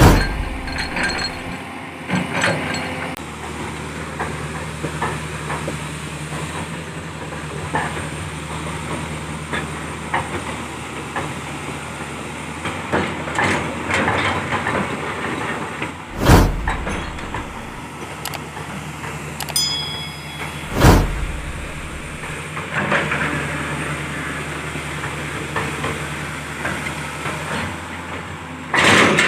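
Caterpillar 320C hydraulic excavator running, its diesel engine humming steadily. Three heavy clunks stand out, one at the very start and two more a little past halfway, about five seconds apart, with lighter knocks and metallic clatter scattered in between.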